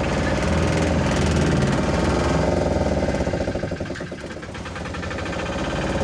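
Van's engine running, heard from inside the cabin as it drives, with a rapid even pulsing and a low hum. The sound drops about three and a half seconds in and builds back up near the end.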